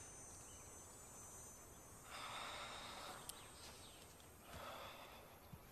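Near silence, with two faint breathy hisses, one about two seconds in and another near the end.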